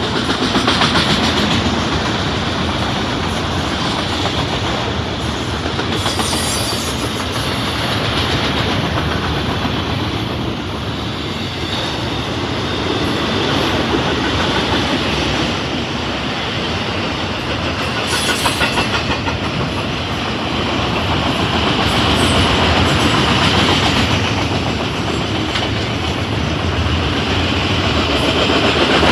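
Freight train of autorack cars rolling past close by: steady rumble with the clickety-clack of wheels over rail joints. Two short high-pitched squeals cut in, about six and eighteen seconds in.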